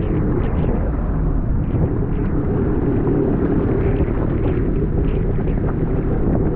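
Wind buffeting the microphone: a steady, loud, low rumble with no distinct tones.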